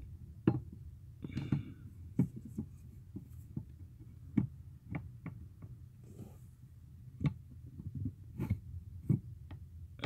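Irregular light clicks and knocks of a steel clutch pedal and its fittings being handled and fitted against the pedal box and the clutch master cylinder pushrod, over a faint steady low hum.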